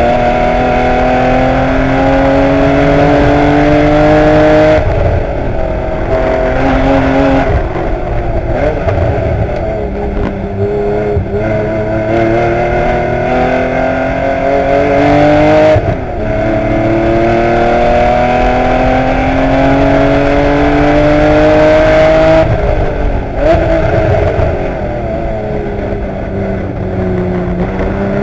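1984 Porsche 911's air-cooled flat-six engine at race pace, heard from inside the cockpit. Its pitch climbs steadily under full throttle and drops back sharply several times as the driver lifts or shifts, then climbs again near the end.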